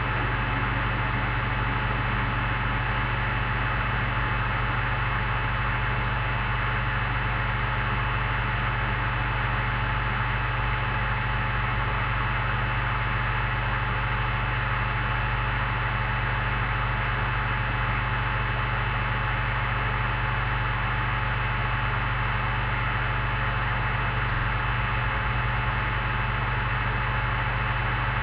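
Steady electrical hum under an even hiss, unchanging throughout.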